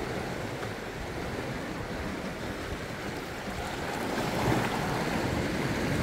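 Sea waves washing and surging against shoreline rocks, a steady wash that swells louder about four seconds in as a bigger wave comes in.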